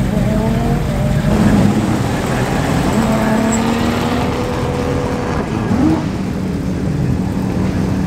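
Rally car engine idling steadily, its pitch briefly rising a little before six seconds. People talk in the background.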